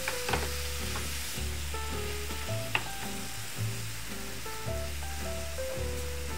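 Marinated chicken thigh pieces sizzling in a hot frying pan, under background music with a low bass line and a stepping melody.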